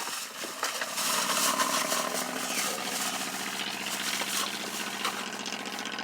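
A vehicle engine idling, coming up about a second in and then running steadily.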